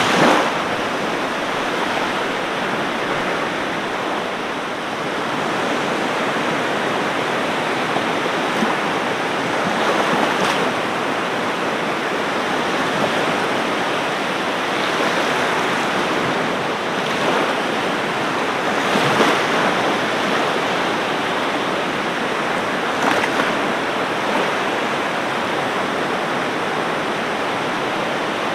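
Ocean surf washing on a beach: a steady rush of breaking water, with brief louder surges now and then.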